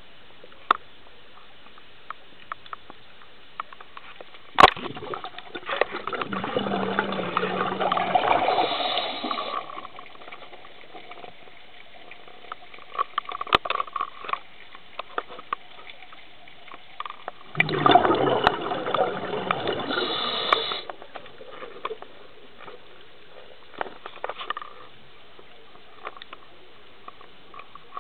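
Scuba regulator exhaust bubbles recorded underwater: two long gushes of exhaled bubbles about twelve seconds apart, each lasting three to four seconds. A sharp click comes just before the first gush, and faint clicks are scattered between them.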